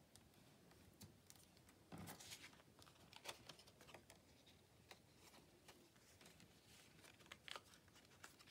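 Faint paper handling: small clicks, scrapes and rustles as paper window panes are cut and worked free at the corners.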